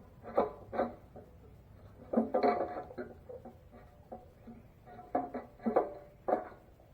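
Metal parts and hand tools clinking and knocking as a gas tank is fitted and bolted to a small Briggs & Stratton engine: a handful of separate short knocks with a brief metallic ring, a few near the start, a cluster about two seconds in, and three more near the end.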